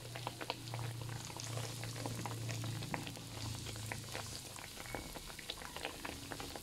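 Sweet-potato dough rolls deep-frying in hot oil in a wok on a medium flame: a steady crackle of many small pops. A low hum sits underneath and stops about four and a half seconds in.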